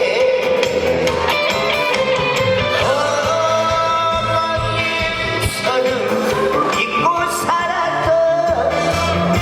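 Live trot music amplified through a PA: a singer's voice carrying a gliding melody over band backing with a steady bass beat.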